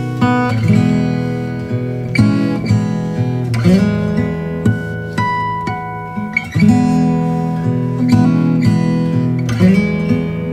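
Instrumental background music: chords strummed on acoustic guitar, with a new chord struck every two to three seconds and single notes picked above them.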